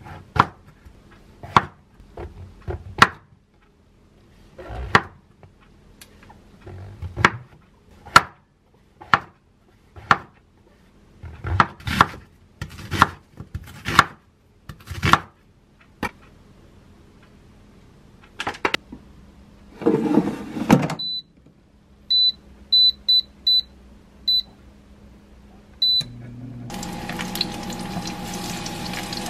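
Kitchen knife slicing a king oyster mushroom and an onion on a wooden cutting board: a run of irregular sharp knocks on the board. After that come several short electronic beeps from the air fryer's controls. Near the end, sliced mushroom and onion start sizzling in an oiled frying pan on a gas burner.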